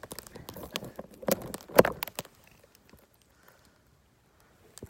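Crunching and knocking in deep fresh snow: a quick run of irregular crunches for about two seconds, loudest just before two seconds in, then it goes almost still apart from a faint click near the end.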